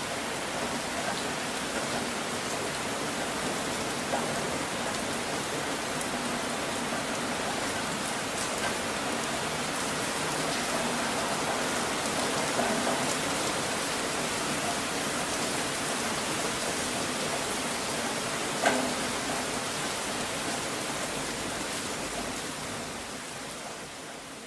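Steady recorded rain noise, the masking track laid over a subliminal's hidden affirmations, with one sharp tick about three-quarters of the way through and a fade-out over the last couple of seconds.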